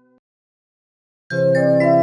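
MIDI recreation of a Japanese train's onboard announcement chime. A held chord fades out and stops just after the start; after about a second of silence the next chime begins with a quick run of notes over a sustained low chord.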